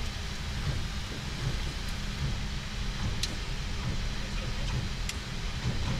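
Steady low rumble inside the cockpit of a Boeing 737 MAX 8 taxiing onto the runway with its CFM LEAP-1B engines running, a faint steady hum above it. A couple of faint short ticks come about three and five seconds in.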